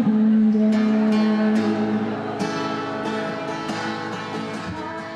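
Background music with a strummed acoustic guitar, fading out over the last few seconds.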